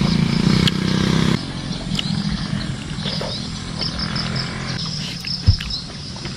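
A motorbike engine running close by, loudest at the start and fading away after about a second and a half. Birds then chirp, with soft chewing clicks and one sharp thump about five seconds in.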